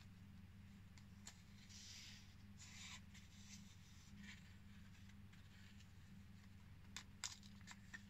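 Faint rustling of paper pages and ephemera handled by hand, loudest about two to three seconds in, with a few light clicks and taps near the end, over a low steady hum.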